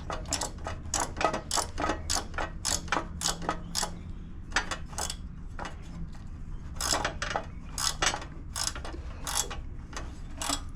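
Ratchet socket wrench clicking in irregular strokes, roughly two to three clicks a second, as a fastener is run down on a Briggs and Stratton mower engine.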